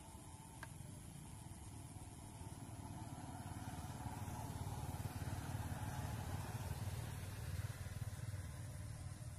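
A small motorbike engine running, growing louder from about three seconds in and easing off slightly near the end.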